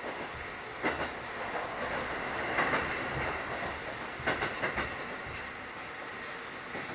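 A Kotoden 1080 series electric train (ex-Keikyu 1000 series) running, heard inside the passenger car as a steady rumble. Its wheels clack over rail joints in a few quick groups: twice about a second in, once in the middle, and three times near the end.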